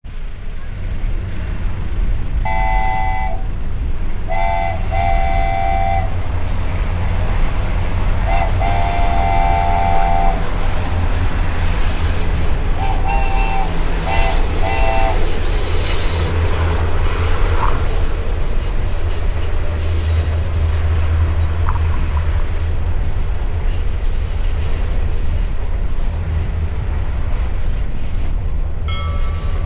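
Train running with a steady low rumble and sounding its horn: a few blasts in the first third, the longest about two seconds, then three short toots about halfway through.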